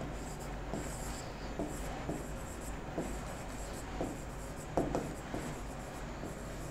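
Marker pen writing on a whiteboard: a run of short, faint scratching strokes, one slightly louder about five seconds in.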